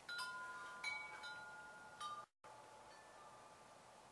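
Faint chimes ringing: several clear tones that ring on and slowly fade, with a brief dead gap just over two seconds in.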